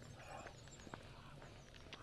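Faint footsteps of a person walking, heard as scattered soft clicks, with faint high bird chirps.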